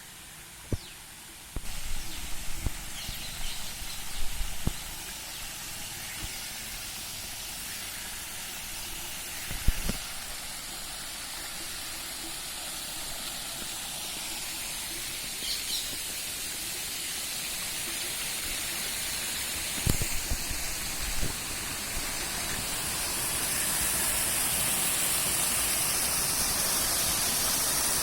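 Rushing river water in full flow after rain, a steady hiss that grows louder about three-quarters of the way in. A few short low thumps on the microphone.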